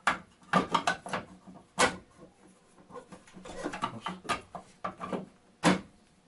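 Irregular plastic and metal clicks, knocks and rubbing from a submersible well pump control box as the old capacitor part is taken out and the new one fitted. The loudest snaps come about two seconds in and near the end.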